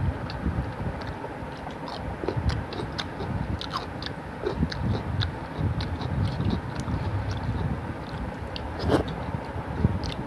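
Eating by hand from a steel plate: fingers squishing and pressing rice and fish curry together, with chewing, giving many small scattered clicks and wet ticks over a steady low rumble.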